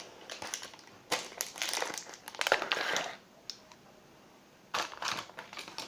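Hard slime being squeezed and kneaded by hand, giving off crackly, squelchy clicks and pops in two bouts with a short pause after about three seconds.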